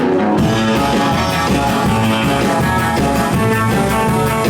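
Live band playing an upbeat instrumental passage with no singing: electric guitar over a drum kit and bass.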